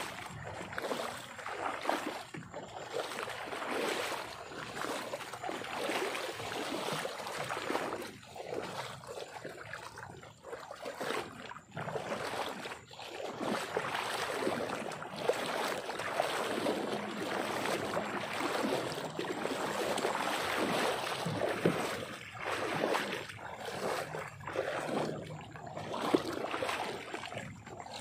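Irregular rustling and trickling water noise from moving through tall wet grass along a shallow ditch, with a few soft knocks.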